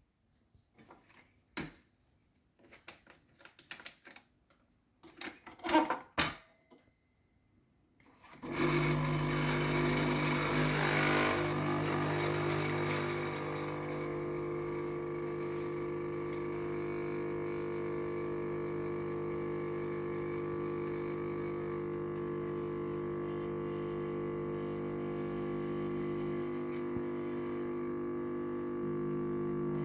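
A few clicks and knocks as the Jura N3 Nespresso capsule machine is handled, then, about eight seconds in, the machine's pump starts a steady hum, with a hiss for the first few seconds. It runs for about twenty seconds and stops abruptly near the end.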